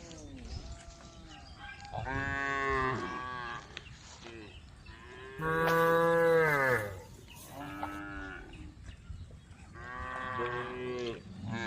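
Cows mooing: four separate long moos from the herd, the loudest about halfway through, each dropping in pitch as it ends.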